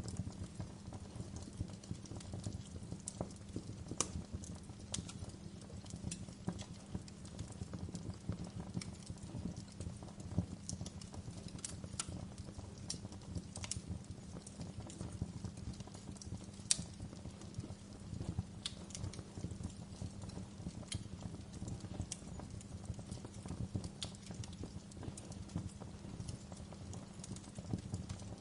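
Wood fire burning in a fireplace, crackling with irregular sharp pops and snaps over a low steady rumble of the flames.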